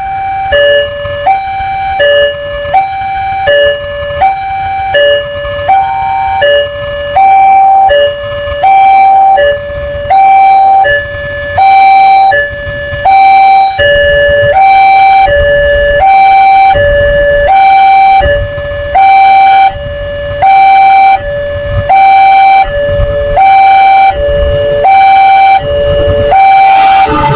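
Railroad level crossing warning alarm sounding a two-tone electronic high-low signal over and over, which warns that a train is coming. The tones alternate quickly at first and more slowly from about a third of the way in, over a low rumble that grows stronger later on.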